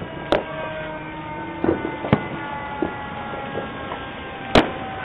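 Neighbourhood fireworks going off: about five sharp bangs at irregular intervals, the loudest about four and a half seconds in, heard through a doorbell camera's microphone.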